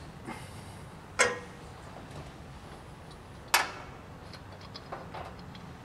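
Two sharp metallic clicks about two seconds apart, then a few faint ticks: steel panel nuts being handled and fitted by hand onto the threaded bodies of the cabinet coolers set in the sheet-metal panel.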